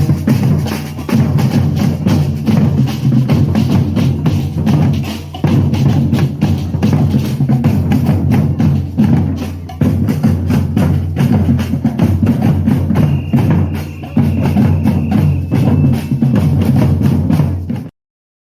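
Batucada drum ensemble playing a fast, steady samba rhythm: deep surdo bass drums under snare and other hand percussion. There are a few brief breaks in the beat, and it cuts off suddenly near the end.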